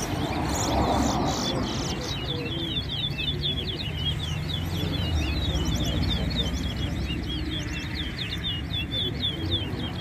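Towa-towa (chestnut-bellied seed finch) singing in a bird race: a fast, continuous run of short, high chirping notes that grows denser after about two seconds.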